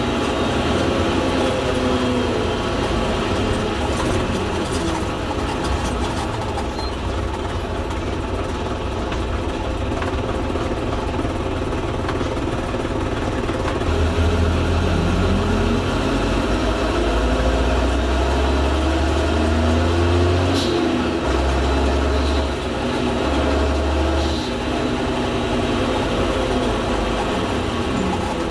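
Leyland Olympian double-decker bus engine running and pulling away through its gears, its pitch rising and falling with each change. A brief hiss about twenty seconds in is the air-operated gearbox's 'sneezing' gear change.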